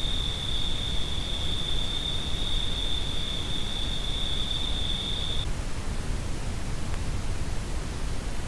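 Steady hiss from a Bushnell Trophy Cam trail camera's built-in microphone, with a steady high-pitched tone that stops about five seconds in.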